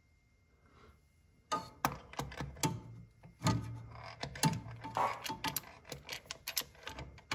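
Irregular metal clicks, knocks and clinks, several a second, some with a short ringing note, as a harmonic balancer and its installation tool are fitted onto an LS engine's crankshaft snout. It starts about a second and a half in, and a low hum sounds for about a second and a half in the middle.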